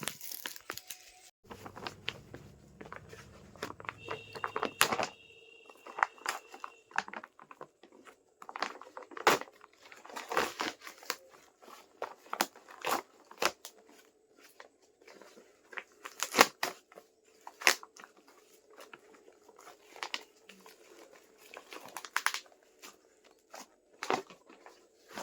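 Packaging of a parcel of books being torn open and handled: irregular crinkling, tearing and rustling, with small knocks as the contents are moved.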